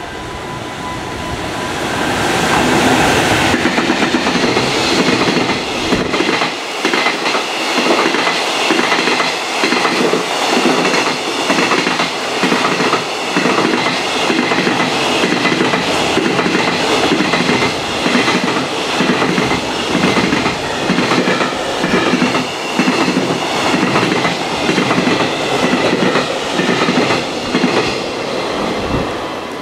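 A JR Freight Class EF210 electric locomotive hauling a container freight train passes through at speed. The rush is loudest about three seconds in, then the long string of container wagons goes by with a steady clickety-clack of wheels over the rail joints.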